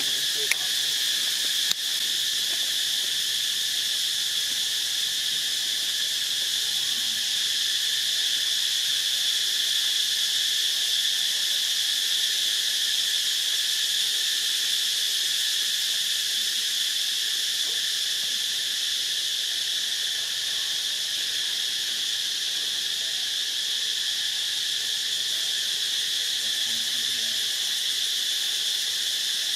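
Steady, high-pitched chorus of insects droning without a break. Two brief faint clicks sound about half a second and two seconds in.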